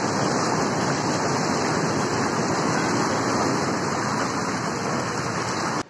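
Swollen, fast-flowing floodwater rushing over a low weir: a loud, steady rush of churning whitewater that cuts off suddenly at the end.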